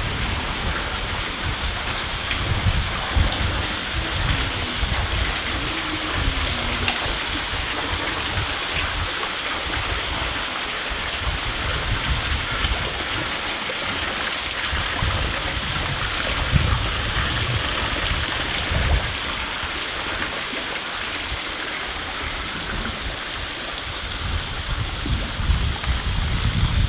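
Water dripping and falling inside a disused railway tunnel, a steady rain-like hiss, with irregular low thumps underneath.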